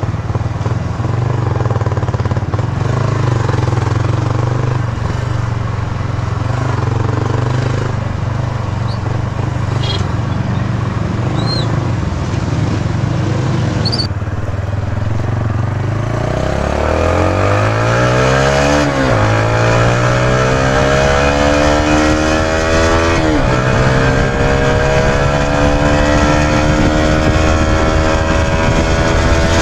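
Yamaha YB125Z DX's 125 cc single-cylinder four-stroke engine running at a steady speed, then accelerating from about halfway, its pitch climbing through the gears. The pitch drops sharply at two upshifts, a few seconds apart.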